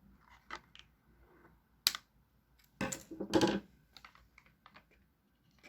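Small plastic clicks and clatter from a Bakugan toy being handled: scattered light ticks, one sharp click about two seconds in, and a busier burst of clicking a second later.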